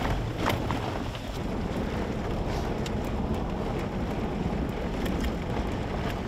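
Road noise inside a pickup truck's cab driving on a gravel road: a steady low rumble of tyres and engine, with a few faint ticks.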